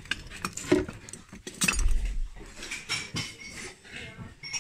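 Glass and porcelain clinking and knocking together as dishes and vases are shifted around in a box and a porcelain vase is lifted out, with a short low bump about two seconds in.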